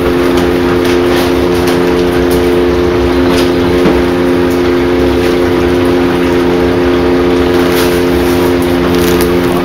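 Submerged third-horsepower sump pump humming steadily as it circulates water in a 55-gallon plastic barrel, with water churning.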